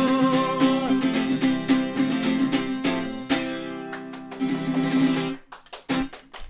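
Acoustic guitar strummed to end a song, under a sung note held with vibrato for about the first second. About three seconds in, a hard strum rings out and fades. The song closes with a few short, sharp chopped strums.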